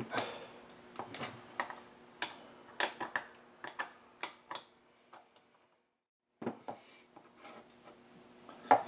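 A run of light, irregular clicks and knocks from hand work on a chainsaw's crankcase halves and the metal tools around them, roughly two or three a second, briefly dropping out about two-thirds of the way through.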